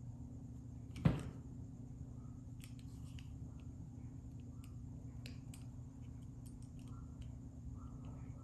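Hand crimping tool closing a terminal onto a 14-gauge wire: one sharp snap about a second in, then faint scattered small clicks of tool and wire handling, over a steady low hum.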